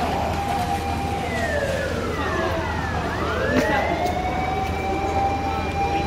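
Fire engine siren wailing: a held tone that slides down, then rises again about three seconds in and holds, over a steady low hum.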